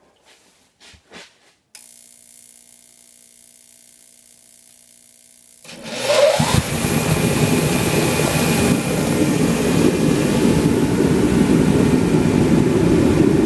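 A few faint clicks and a faint steady hum, then about six seconds in the Master forced-air heater starts up: its motor spins up and the fan and burner settle into a loud, steady rush. The heater is running with its fuel pump pressure stuck at about 4.5, short of the specified 5.5.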